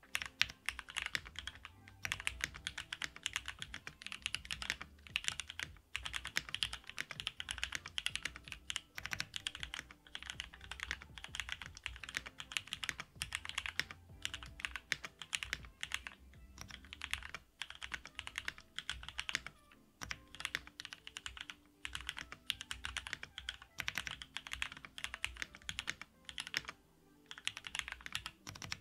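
Steady typing on a custom mechanical keyboard with lubed Cherry MX Black Hyperglide linear switches in a polycarbonate plate, with Poron plate foam and GMK keycaps. The keystrokes come in rapid runs broken by a few brief pauses.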